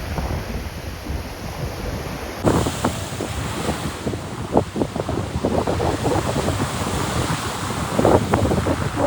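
Sea waves washing onto a beach, with wind buffeting the microphone. From about two and a half seconds in, a quick run of short scuffing sounds rides over the surf.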